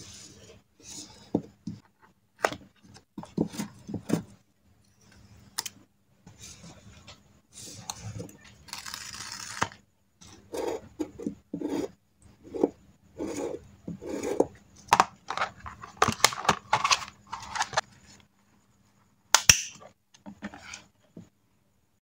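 Paper being handled on a kraft paper journal page: stickers and cut-outs are pressed and rubbed down, with irregular rustling, scratching and small taps. A sharp click comes near the end.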